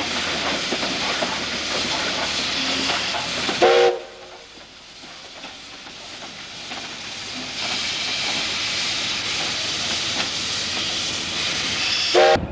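Steam locomotive with a steady hiss of steam, giving a short whistle blast about four seconds in and another near the end. After the first blast the sound drops away for a few seconds before the hiss returns.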